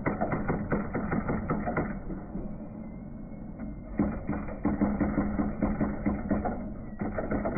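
NEC Spinwriter 7720 thimble printer printing: a rapid clatter of hammer strikes on the print thimble, with a low hum underneath. The clatter drops away about two seconds in and starts again about four seconds in.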